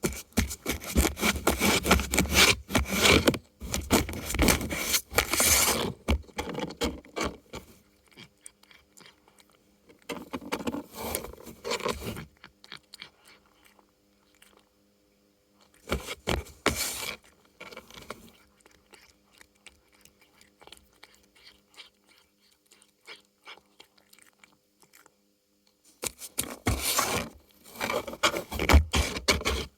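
Cats scraping at and biting a cardboard treat toy, with scratching and crunching in several bursts: a long one at the start, short ones near 11 and 17 seconds, and another near the end. A faint steady hum runs underneath.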